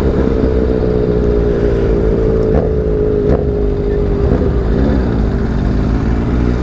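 Motorcycle engine running steadily while riding, its pitch sagging slightly, with low wind rumble on the microphone. A little past the middle the engine note briefly rises and falls.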